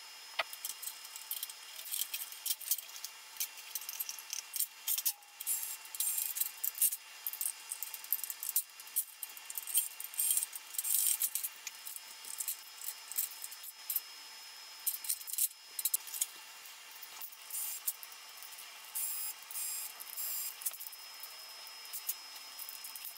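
Rapid, irregular clicking, clinking and scraping of hand tools and small metal and plastic parts as a stereo system is taken apart, with scissors working at wiring on a steel chassis and circuit board.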